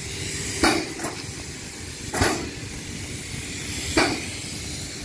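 Plural-component PU spray rig running, a steady hiss with three short, sharp blasts of hiss from its pumps about every one and a half to two seconds.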